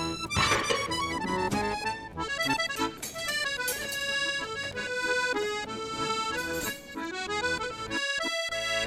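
Background music led by an accordion, with many notes moving quickly throughout.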